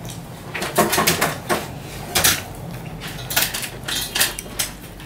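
Close-up eating sounds of rice and vegetable curry being eaten by hand off a banana leaf: a series of short clicks and smacks, irregularly spaced, several in a row with brief pauses.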